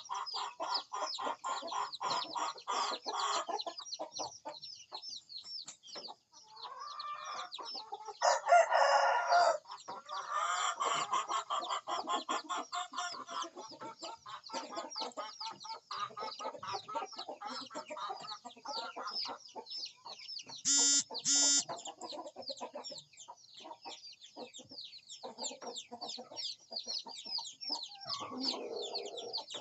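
Chickens clucking with a rooster crowing. The loudest stretch comes about eight to thirteen seconds in, and two short, loud pitched calls come about two-thirds of the way through, over constant high, rapid chirping.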